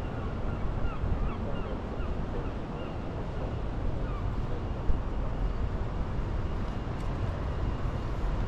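Outdoor city street ambience: a steady low rumble of background noise, with a few faint high chirps in the first couple of seconds and a brief click about five seconds in.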